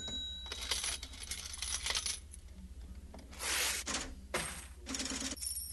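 Metal coins clattering and clinking in several bursts, with a thin metallic ringing after some of the strikes.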